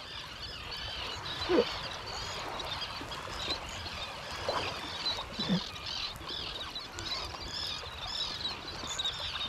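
A flock of seabirds calling without pause over the water, a dense high chatter, with a few louder calls sliding downward in pitch about a second and a half in and again around five seconds in. The birds are working over a striped bass blitz on sand eels.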